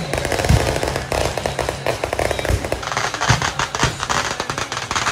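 Firecrackers going off in a fast crackling string, with a few heavier bangs mixed in; the crackling grows louder about three seconds in.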